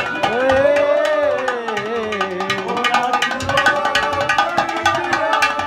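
Live Haryanvi ragni accompaniment: dholak and nakkara drumming in a fast, dense rhythm with harmonium, and a long held note that wavers in pitch during the first few seconds.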